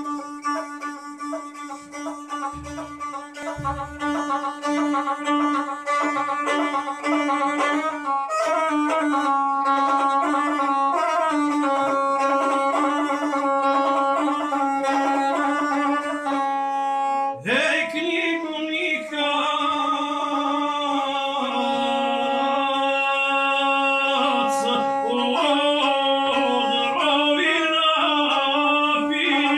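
A gusle, the single-stringed bowed instrument of South Slavic epic singing, is played with a horsehair bow in a quick, ornamented prelude over a steady low note. A little past halfway a man's voice comes in with a rising slide and carries on singing an epic song in the guslar style over the gusle.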